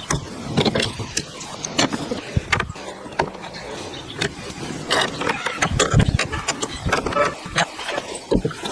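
Irregular knocks, taps and clatter of hand work on wood, a few sharp strikes a second with heavier thuds about six seconds in.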